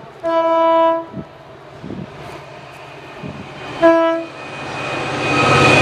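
Horn of a class 66 diesel locomotive hauling a coal train, sounded twice at the same pitch: a blast of about three quarters of a second, then a short one about three seconds later. After the second blast the running noise of the locomotive's two-stroke EMD diesel and its loaded coal wagons grows louder as the train approaches.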